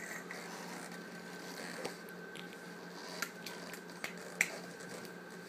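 A few short, sharp clicks and taps scattered over a steady faint hum, the loudest click a little over four seconds in.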